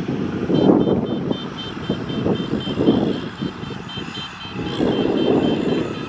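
Kubota tractor's diesel engine running as it drives and turns, with a rapid, evenly spaced high electronic beeping starting about half a second in.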